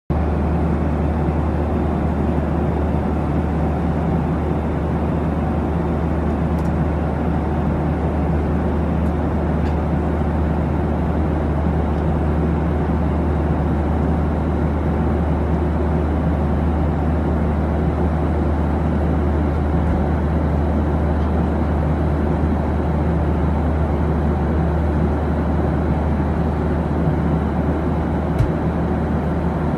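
Steady low engine drone and rushing cabin noise from inside a moving vehicle, with a constant low hum and no change in pitch.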